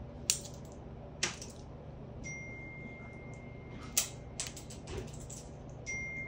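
African grey parrot cracking and crunching a snack held in its foot with its beak: a few sharp cracks, the last about four seconds in, followed by smaller crunching clicks.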